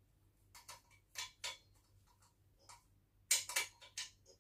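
Irregular short metallic clicks and scrapes of a small hand tool turning a bolt at a joint of a black metal table frame, a few scattered clicks and a quick cluster of them about three seconds in.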